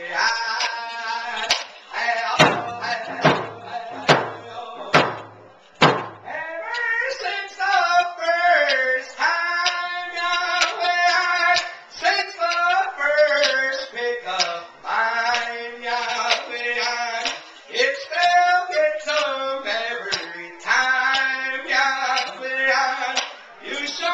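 Male singer singing a round dance song to his own hand drum. The drum strokes stand out between about two and six seconds in, roughly one a second, while the voice drops back, then the singing carries on over the beat.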